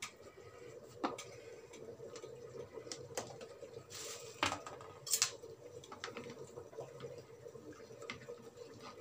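A few scattered clinks and knocks of metal kitchen pots and utensils over a low steady background.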